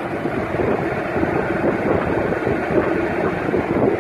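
Takisawa lathe running: a steady hum under a dense mechanical rattle that grows louder about half a second in.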